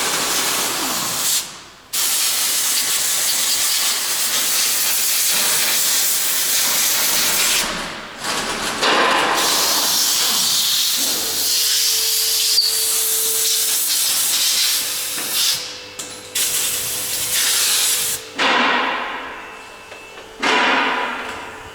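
A loud hiss of air or spray in several long bursts with short breaks, weaker near the end.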